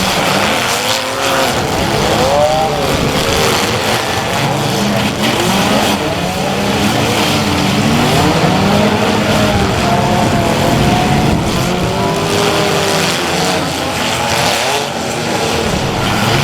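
Several demolition-derby compact-car engines revving up and down at once, their pitches rising and falling over one another.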